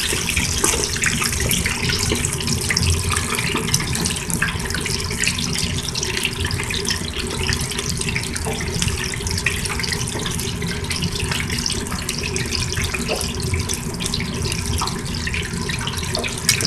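Lightly battered chicken wings deep-frying in a deep fryer basket: hot oil bubbling and sizzling steadily with a dense crackle, one sharper click near the end.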